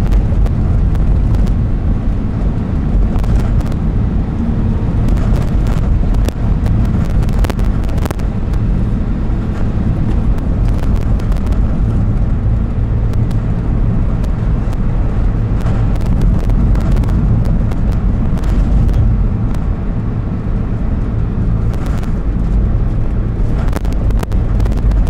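Car driving along a country road, heard from inside the cabin: a steady low engine and tyre rumble, with scattered brief clicks and knocks.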